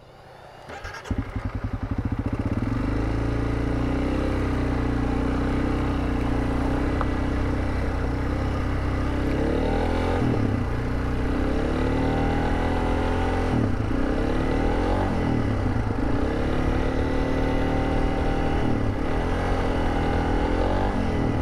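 Honda CRF300 Rally's single-cylinder engine pulling away and riding on. It gets loud about a second in, runs steadily, then later revs rise and drop several times as it is shifted up. The bike's clutch plates are burnt and slipping, making gear changes hard.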